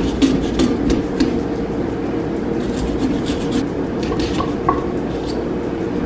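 Small serrated pumpkin-carving saw sawing through a pumpkin's rind in short, irregular rasping strokes.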